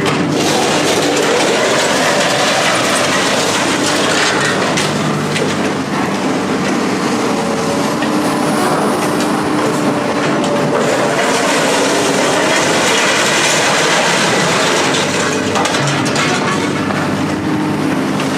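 Loud, steady mechanical running noise with continuous rattling and clatter, like a heavy vehicle or machine at work.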